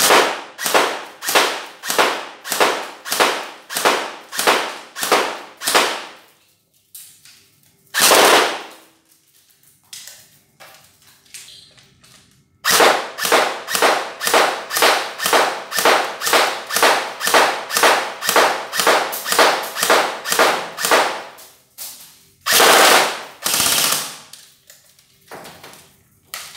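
JG SVD Dragunov airsoft electric gun firing on semi-auto, about two to three shots a second, in two long strings. After each string comes a short full-auto burst, and a last brief burst near the end.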